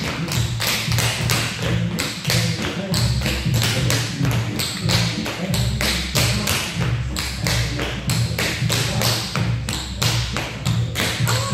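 Tap shoes of several dancers striking a wooden floor in quick rhythmic runs of taps, with a low thumping underneath.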